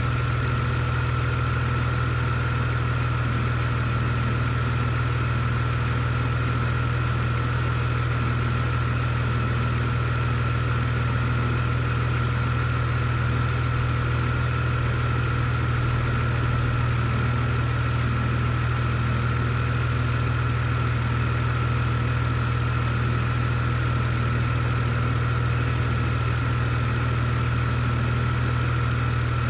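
BMW E46 inline-six engine idling steadily, running with a misfire that trips the check-engine light with a misfire code for cylinder 6.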